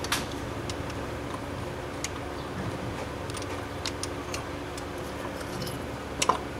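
Scattered light clicks and metal taps, a couple of seconds apart and loudest near the end, as a replacement A/C compressor is handled onto its mounting bolts. A steady low hum runs underneath.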